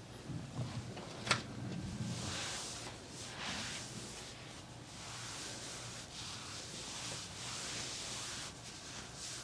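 Slow rubbing strokes of a massage, hands or a tool moving over skin or clothing, swishing in waves every second or two, with one sharp click about a second in.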